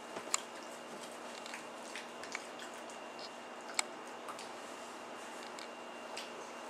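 A pug licking and smacking its mouth: a few faint, sharp wet clicks, the strongest about a third of a second in and again near four seconds in, over steady room hiss.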